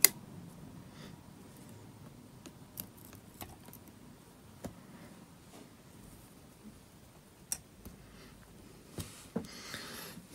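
Small metal tool and fingers clicking and tapping against the parts of an opened tablet: scattered light clicks, a sharp one right at the start and a few close together near the end, with a soft rustle of handling.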